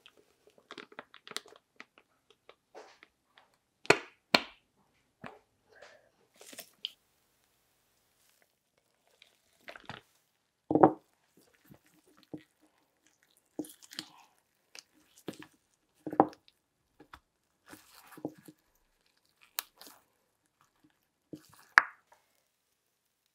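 Kitchen handling sounds of pastry work: a silicone mould of frozen raspberry inserts being handled and the inserts lifted out. Irregular clicks, scuffs and sharp knocks come every second or two, with the loudest knocks a few seconds apart.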